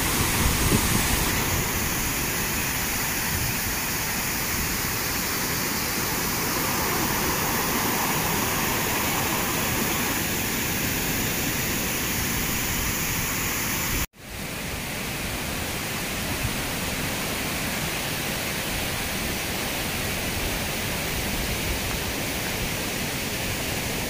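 Steady rush of white water from a large waterfall in full flow, pouring down rock terraces. About fourteen seconds in, the sound cuts out for an instant, then resumes slightly quieter.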